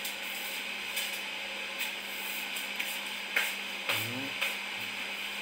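Scattered light clicks and knocks over a steady background hiss and hum, with a brief low murmur about four seconds in.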